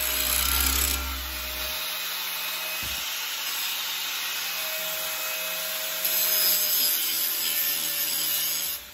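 Angle grinder running and grinding into the steel of a machete blade, a steady motor whine under the grinding noise. The grinding is louder about six seconds in and stops abruptly just before the end.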